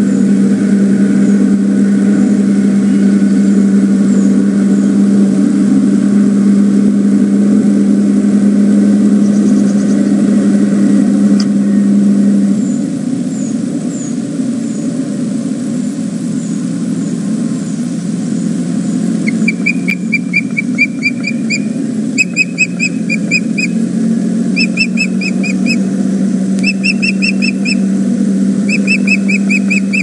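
A steady low hum, loud for the first dozen seconds and softer after. From about two-thirds of the way in, an osprey gives several runs of rapid, high whistled chirps.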